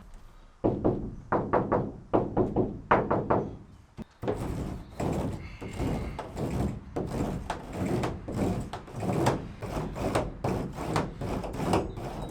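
Butyl sound-deadening sheet being pressed onto a van's thin metal panel with a homemade roller made from two bottle lids: repeated rubbing strokes, a brief pause about four seconds in, then faster back-and-forth rolling.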